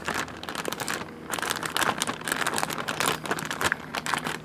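Plastic zipper freezer bag crinkling and rustling in bursts as it is squeezed and kneaded by hand to break and mix raw eggs with cheese, meat and grits inside.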